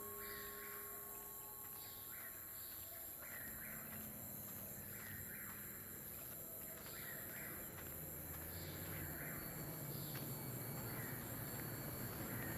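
Outdoor woodland ambience: short chirping animal calls repeated about once a second over a faint steady hiss. A low hum swells in near the end.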